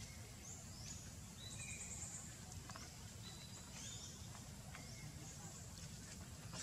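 Outdoor ambience: birds chirping in short, high notes, over and over, above a steady low rumble.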